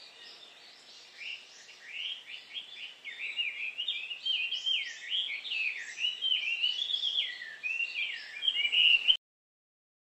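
Birds singing, a run of quick chirps and sliding whistled notes that grows louder about three seconds in; it cuts off suddenly near the end.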